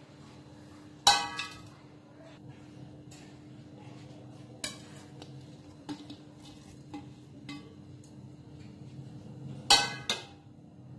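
A steel bowl clanking against a stainless-steel pressure cooker as vegetables are tipped in: two loud ringing clanks, about a second in and near the end, with a few lighter knocks between. A steady low hum runs underneath.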